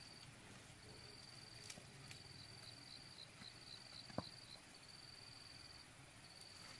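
Faint insects trilling, a steady high-pitched buzz broken into stretches, with a brief run of quick chirps, about five a second, in the middle. A single sharp tap sounds a little after four seconds in, with a lighter click earlier.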